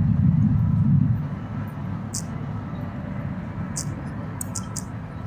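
Low steady rumble of background noise picked up by a phone's microphone during screen recording, louder for about the first second, with a few short faint hissy ticks.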